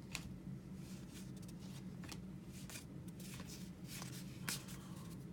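Trading cards flipped through by hand: a few soft card-on-card slides and flicks, spaced about half a second to a second apart, over a low steady hum.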